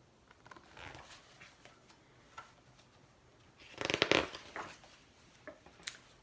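Rustling paper as a picture book's pages are handled and turned: soft rustles at first, then a louder rustle about four seconds in.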